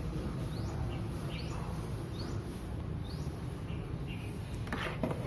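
A small bird chirping in short rising notes, about one every half second or so, over a steady low hum. A couple of faint clicks come near the end.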